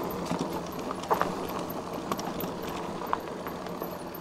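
Fat-tyred Himiway Zebra electric bike rolling over a hard-packed dirt trail with loose dirt on top: steady tyre and wind noise with scattered clicks and knocks as the bike rattles over the bumps, a cluster of them about a second in, over a faint steady hum.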